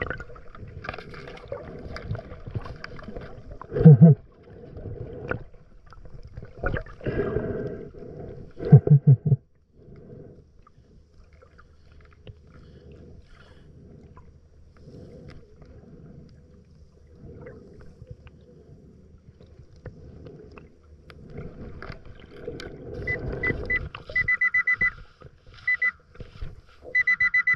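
Underwater noise of a diver moving and breathing, with loud bubbling gurgles about 4 and 9 seconds in. Near the end a Pulse Dive underwater pinpointer metal detector gives a run of steady high beeps, signalling a metal target under the sand.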